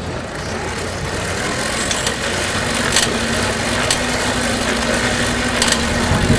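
A steady mechanical hum of a running motor. A faint steady tone comes in about two and a half seconds in, and a few light clicks sound over it.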